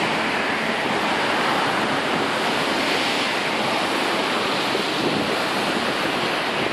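Heavy storm surf churning and breaking against a seawall: a loud, steady rush of foaming seawater.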